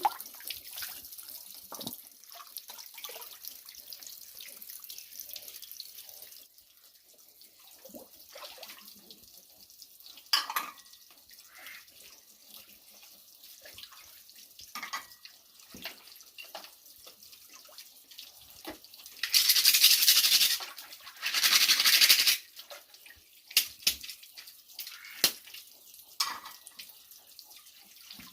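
Water running for the first few seconds, then scattered clinks and knocks, and two short, loud bursts of water rushing out about two-thirds of the way in.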